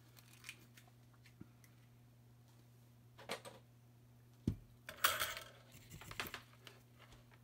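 Soldering tools being handled on a workbench: small metal clicks, a low thump about four and a half seconds in, then a short run of sharp metallic clinks and clatters, the loudest part, under a faint steady electrical hum.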